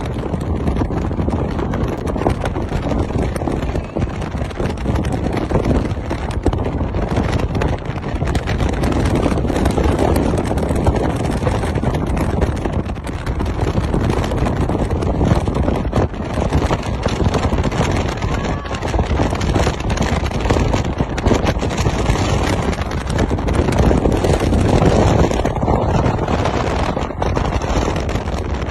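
Storm wind buffeting the microphone: a loud, gusting low rumble that swells and eases without a break.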